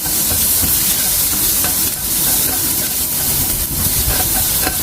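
Minced garlic and ginger sizzling in hot corn oil in a frying pan: a steady hiss with scattered small crackles and pops.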